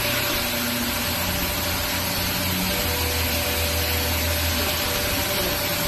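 A steady mechanical hum under a rushing hiss, like ventilation or a machine running, the low hum swelling a little in the middle.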